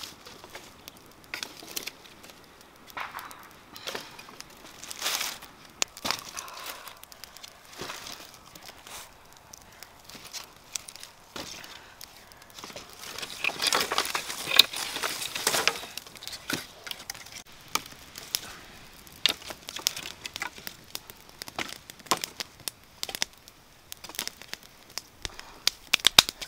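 Dry sticks and cassava roots being handled and stacked over a small wood fire, with dry crackling and sharp snaps throughout. A louder stretch of rustling and knocks comes about halfway through.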